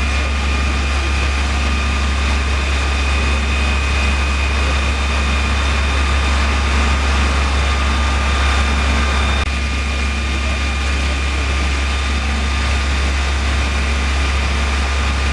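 Fire engine's diesel engine running steadily with a deep hum, driving its pump while the hoses are flowing, with a thin steady whine above it.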